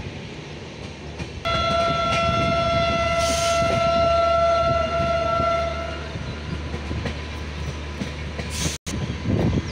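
Train horn sounding one long steady note for about four and a half seconds, starting about a second and a half in, over the rumble and wheel clatter of a moving passenger train heard from inside the coach.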